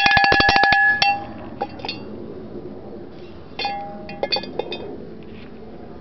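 Large antique cowbell shaken hard, its clapper striking rapidly for about a second while the bell rings out. A few light clanks follow, then a shorter burst of strikes and ringing about three and a half seconds in.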